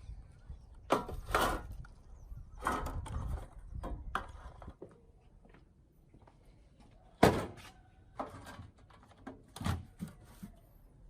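Handling knocks and thuds: a cluster of knocks in the first five seconds, then a single sharp knock about seven seconds in and two smaller ones near the end.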